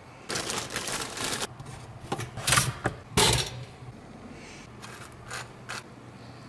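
Kitchen handling sounds while making scrambled eggs. Beaten eggs hiss as they hit the hot pan for about a second, then come several sharp clicks and knocks of utensils and containers, the loudest two near the middle and a few lighter ones later.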